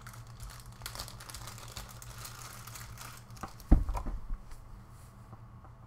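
Small clear plastic jewelry bag crinkling as it is handled and opened. About three and a half seconds in there is a sharp thump, the loudest sound, followed by a few light clicks.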